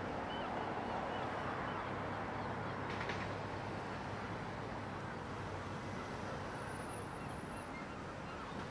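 Steady outdoor background rush with a low hum underneath, and a few faint bird calls. There is a brief click about three seconds in.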